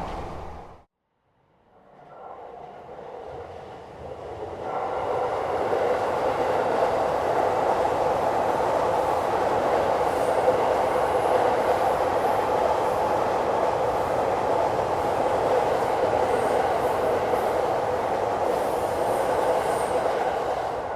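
Train running past on the rails, a steady rumble of wheels and cars. It cuts out briefly about a second in, then builds up over the next few seconds and holds.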